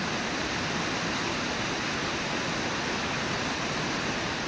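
Steady rush of the Brooks River flowing fast over shallow rapids below Brooks Falls: an even, unbroken water noise.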